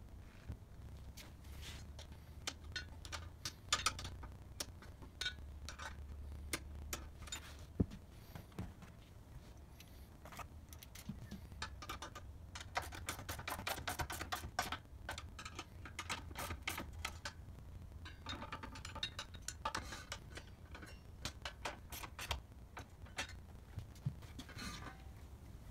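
Metal clicks and clinks of a socket wrench on the bolts of a cylinder mower's rear roller mounts as the nuts are tightened, with a fast run of clicks about twelve seconds in and a few ringing metallic clinks later.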